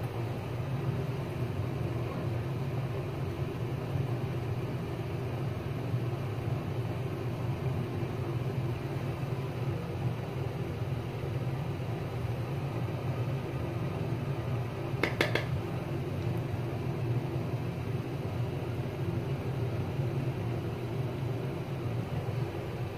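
Steady low background hum of the room, with a brief click about fifteen seconds in.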